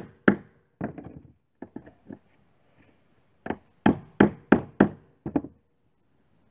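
Hammer striking nails into the dry wooden frames and planking of an old boat. A blow and a few lighter taps come at first, then a quick run of about seven hard blows a little past the middle.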